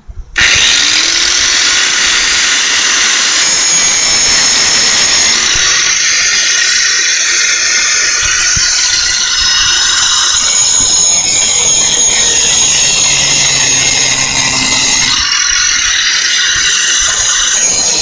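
Harbor Freight Chicago Electric 4.5-inch angle grinder switched on suddenly just after the start, then running loud and steady as it grinds metal, with a high-pitched screech.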